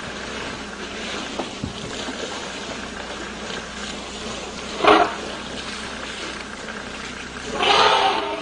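Elephants calling at a waterhole over a steady hiss of water and wind: one short loud call about five seconds in, then a longer, louder call near the end.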